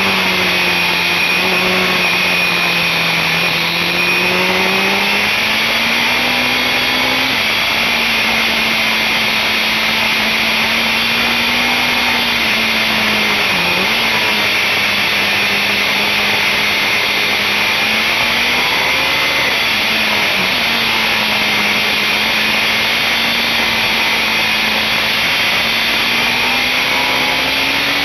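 BMW S1000RR inline-four engine running hard at high revs, heard on board under heavy wind rush. Its pitch drifts up and down with the corners, dips sharply for a moment about halfway through and again more lightly later on, then climbs near the end.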